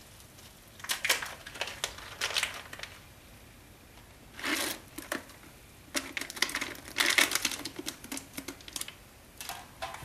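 Small plastic zip-top bag of hops crinkling and rustling in irregular bursts of crisp clicks as the hops are shaken out into the hop basket.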